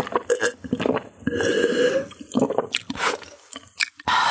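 Close-miked gulping and swallowing of cola drunk from a glass: a run of short, wet gulps, with a longer breath-like sound about a second and a half in.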